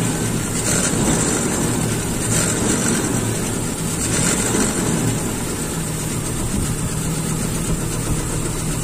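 Toyota Kijang Super's carbureted four-cylinder engine idling, swelling slightly a few times as the carburetor is adjusted by hand. The engine has been idling rough with cylinder 4 not firing, which the mechanic suspects is a valve fault, and its exhaust note he puts down to a leaking or loose header.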